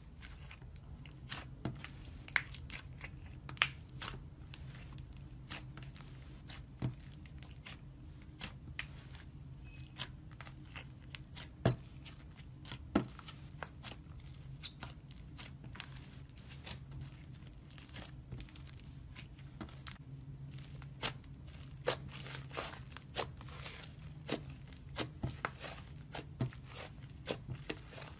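Slime being pressed, squeezed and kneaded by fingers, giving irregular sharp crackles and pops over a faint low hum.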